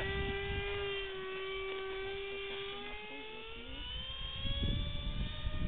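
Electric RC airplane's motor and propeller whining steadily, then rising in pitch about three seconds in. Low wind rumble on the microphone near the end.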